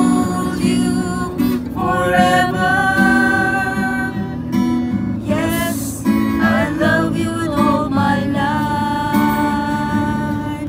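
Acoustic guitar strummed in steady chords, accompanying sung melody with long held notes: a Catholic hymn sung to guitar.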